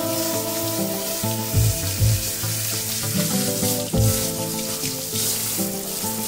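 Water spraying from a handheld shower head onto a wet dog's coat, a steady hiss, under background music with recurring bass thumps.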